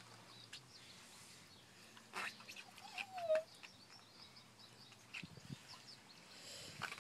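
A small child's short, wavering vocal sound that dips at the end, about three seconds in, with a few light knocks just before it.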